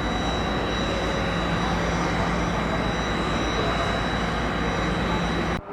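Aircraft engines running steadily, a dense roar with a thin high whine over it, cutting off suddenly near the end.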